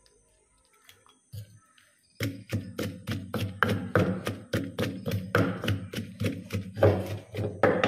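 Wooden pestle pounding in a clay mortar in steady strokes, about three to four a second, starting about two seconds in after a single knock.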